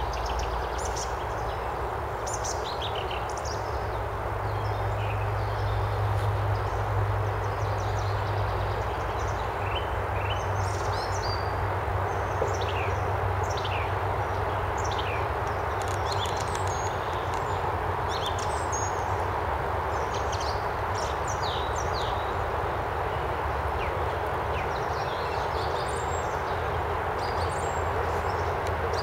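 Small songbirds singing and calling: many short, high chirps, most sliding downward, scattered throughout. Underneath runs a steady low rumble that is strongest in the first half.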